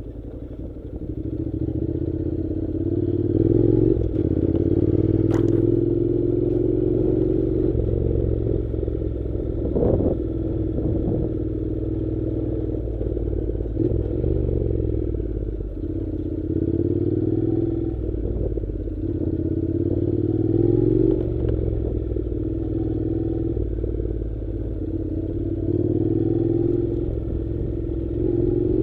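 Honda NC700's parallel-twin engine running while the motorcycle is ridden off-road, its pitch rising and falling with the throttle. A few sharp knocks come from the rough ground, one about ten seconds in.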